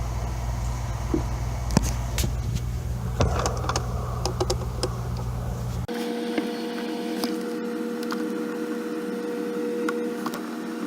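Small sharp clicks and taps from a screwdriver and the screws being worked out of a laptop's screen frame. Under them runs a steady electrical hum that changes abruptly about six seconds in to a higher-toned hum.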